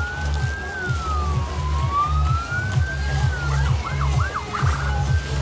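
An emergency-vehicle siren wailing in slow rises and falls, switching to quick yelps and a fast warble about three and a half seconds in, over a deep, pulsing bass line from music.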